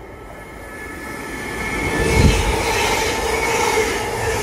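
Class 720 Aventra electric multiple unit running through close by, growing louder over the first two seconds. Its rumble carries a steady electric whine, with a low thump of rumble at its loudest about two seconds in.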